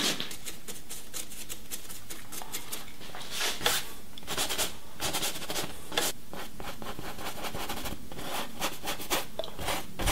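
Paintbrush scrubbing paint onto a stretched canvas: a series of irregular, dry rubbing strokes.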